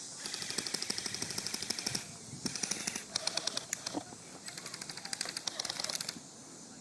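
Airsoft guns firing on full auto: fast runs of sharp clicking shots at about a dozen a second. A long burst of nearly two seconds, a few short bursts, then another long burst before the end.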